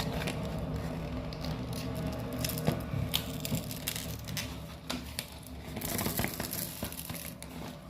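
Plastic packaging crinkling and rustling as a small handheld fan is handled in its box, with scattered clicks; the fan itself does not start.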